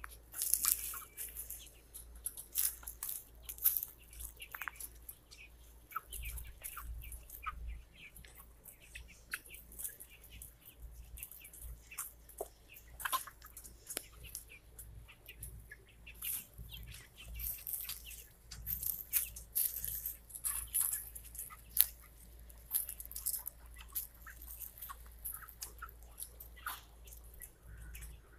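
Flock of young Red Ranger broiler chickens, about seven weeks old, peeping and chirping in many short high calls, with a few sharper clicks among them.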